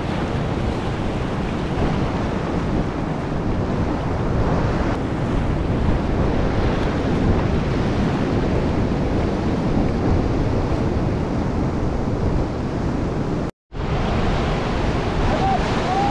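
Ocean surf breaking and washing over rocks in a steady rush, with wind buffeting the microphone. The sound cuts out completely for a moment about thirteen seconds in.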